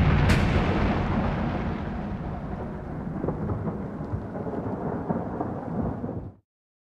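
Thunder with steady rain, loudest at the start and slowly easing, with a sharp click just after the start; the sound cuts off abruptly about six and a half seconds in.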